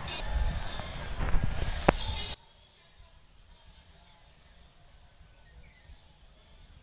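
Steady high-pitched drone of an insect chorus, over a low rumble of wind on the microphone. About two seconds in, the sound drops suddenly to a much fainter level, and the insect drone carries on quietly.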